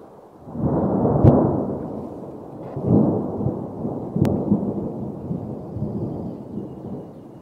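Low rolling thunder that swells twice, about half a second in and again about three seconds in, then slowly dies away.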